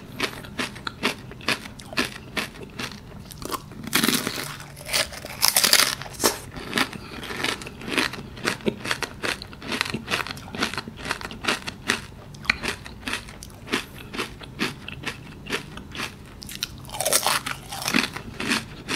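Close-miked biting and chewing of a crisp Cornetto chocolate wafer cone: a long, irregular run of crunches, busiest about four to six seconds in.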